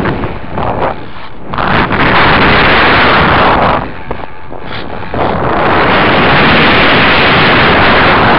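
Loud wind rush over the onboard camera's microphone on a foam RC model plane gliding down with no motor tone: its propeller is jammed and cannot turn freely after the motor mount came loose from the foam. The rush drops back briefly twice, about a second in and again around four seconds in.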